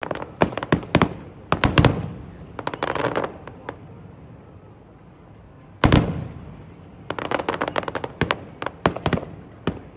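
Aerial fireworks bursting: quick runs of sharp bangs over the first few seconds, one big bang about six seconds in, then another rapid flurry of bangs.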